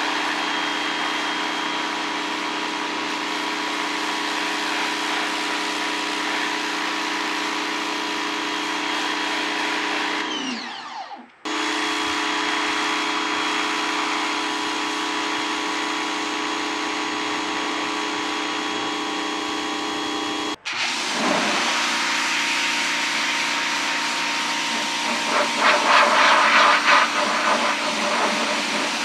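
Briggs & Stratton S1800 electric pressure washer running: a steady motor-and-pump whine under the hiss of the water jet. About ten seconds in, the whine winds down and stops briefly, then picks up again. In the last part the jet's hiss takes over, louder and rougher as it hits the tank surface up close.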